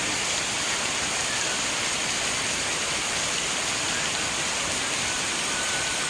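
Heavy rain pouring steadily, an even, dense hiss of water striking the ground and leaves.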